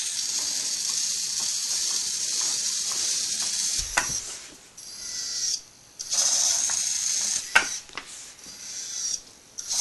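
A small wheeled robot's geared drive servos whirring as it drives and manoeuvres, stopping and starting again about three times as it turns away from obstacles, with a few sharp clicks.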